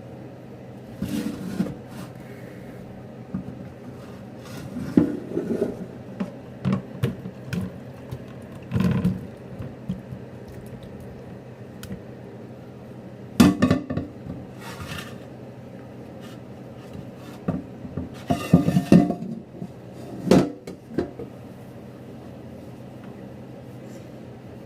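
Kitchen dishes and utensils being handled: scattered clinks, knocks and scrapes of pans, plates and cutlery, with the loudest clatters about halfway through and again a few seconds later.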